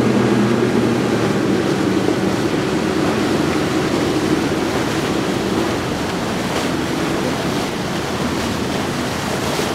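Triple outboard motors of a Caymas 341 CC center-console boat running at speed, their hum fading over the first few seconds as the boat passes, under the steady rush of wake and choppy water.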